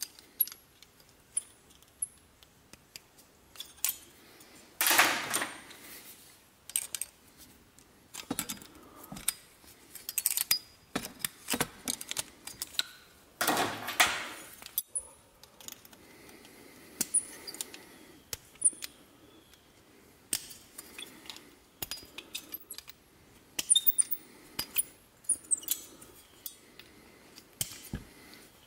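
Small copper pieces clinking and being handled on a workbench: scattered light metallic clicks and taps, with two louder scraping sounds of about a second each, near 5 and 13 seconds in.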